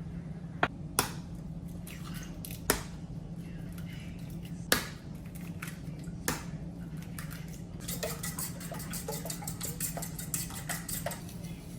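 Hard objects clinking and knocking: five sharp knocks a second or two apart, then a quick run of small clicks and clinks near the end, over a steady low hum.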